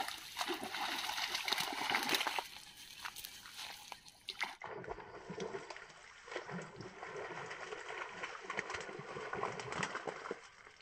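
Snakehead striking and thrashing at the water surface on a fishing line: repeated splashing, loudest in the first couple of seconds and then softer and broken.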